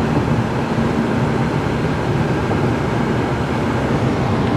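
Steady road and tyre noise with a low engine hum, heard from inside a moving car's cabin at highway speed.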